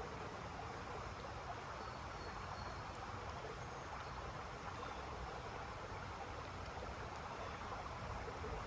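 Light rain falling steadily, a constant hiss with a low rumble under it. A few faint, short, high chirps come through it.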